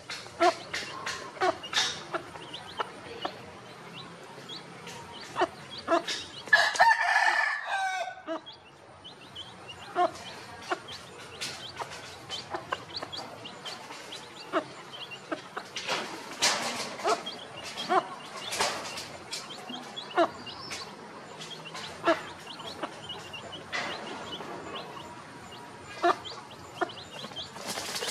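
Chicks peeping and a hen clucking as they feed, with a rooster crowing once, loudly, about six and a half seconds in.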